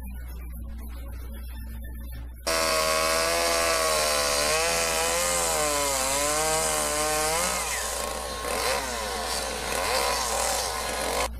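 Gasoline chainsaw carving a wooden figure, its engine pitch rising and falling as the bar is worked through the wood. It starts suddenly a couple of seconds in and cuts off just before the end.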